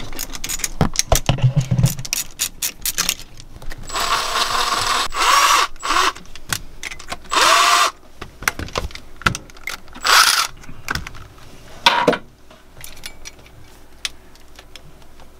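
Hand tools on a Northern Lights diesel generator engine while the glow plug connection is undone: a run of quick metallic clicks like a ratchet wrench, with a few louder scraping squeaks about four, seven and ten seconds in.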